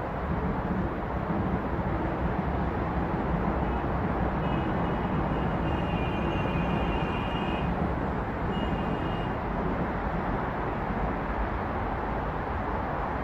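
Steady rush of dense city road traffic, cars passing in a continuous wash. A thin high-pitched whine comes in about four seconds in for a few seconds, and again briefly around nine seconds.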